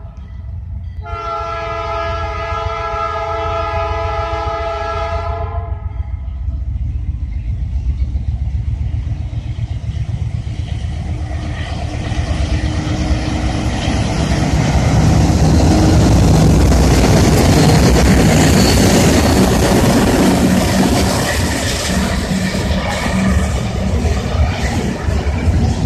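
Diesel freight locomotive approaching and passing. Its multi-note air horn cuts off right at the start, then sounds one long blast from about one second to six seconds in. The engine rumble then builds to its loudest as the locomotive goes by, followed by the rolling rumble and clatter of freight cars.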